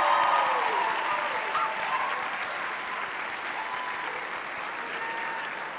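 Large auditorium audience applauding, the clapping slowly dying down.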